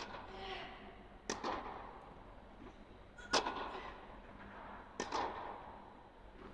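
Tennis rally: a ball struck back and forth with rackets, four sharp hits about one and a half to two seconds apart, each ringing on in the echoing tent hall.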